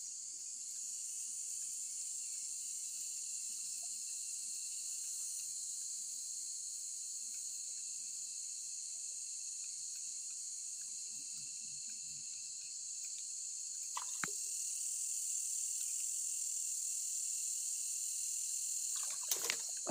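Steady high-pitched chorus of night insects at a tropical riverbank, with a faint click or two about two-thirds of the way through.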